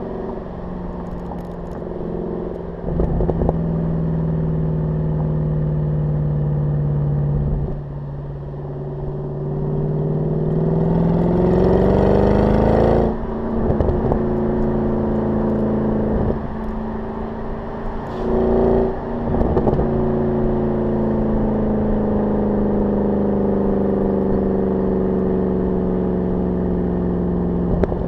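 Mercedes-Benz CLS 63 AMG V8 exhaust, heard close to the tailpipes while driving. The engine note holds steady, then climbs in pitch as the revs rise under acceleration, cuts off sharply about thirteen seconds in, gives a brief louder burst a few seconds later, and settles to a steady cruising note.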